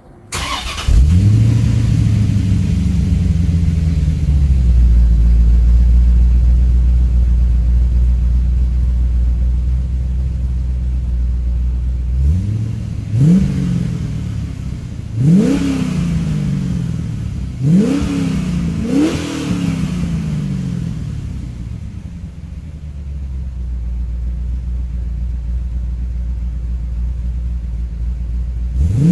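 1992 Chevrolet Corvette V8 through a Magnaflow exhaust starting up. It catches about a second in and runs at a fast idle that slowly settles. Midway there are four quick throttle blips, each a sharp rise and fall in pitch, then it idles again, with one more blip at the very end.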